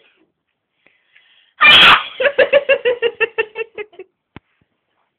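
A person's very loud sneeze, a sharp burst about one and a half seconds in, followed by a fast run of short voiced pulses, about eight a second, that fades out over about two seconds.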